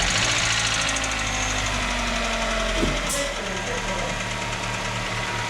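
Hyundai Getz 1.4's four-cylinder petrol engine idling just after its first start following a rebuild, its revs settling slightly lower in the first few seconds. It runs quietly and evenly with no knock, "whispering".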